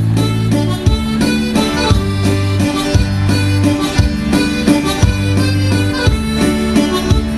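Instrumental dance music with a steady beat: a reedy lead melody over a bass line, with no singing.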